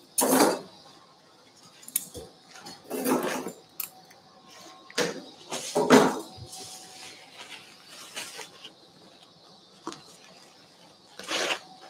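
Surgical drapes being pulled off and rustling, with metal clamps and instruments clinking, in several short bursts a few seconds apart.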